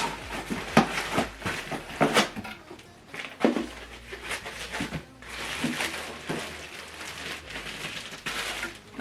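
Unboxing noises: packaging and accessories being handled, with rustling and a few light knocks.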